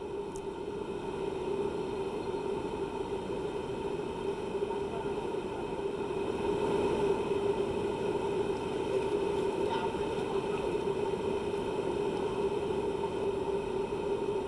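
Floodwater of the Godavari river, running above the danger mark, rushing past in a steady, even wash of water noise that grows a little louder over the first several seconds.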